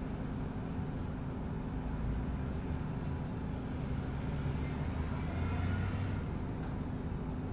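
Volvo B10BLE bus's Volvo DH10A-245 six-cylinder diesel engine idling with a steady low hum, heard from inside the saloon while the bus stands still. Other vehicles pass in front, adding a swell of rumble a little past the middle.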